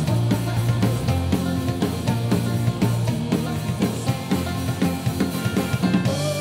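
Celtic punk band playing live, instrumental: a drum kit keeps a quick, steady beat under strummed acoustic guitar, banjo and a sustained low bass line.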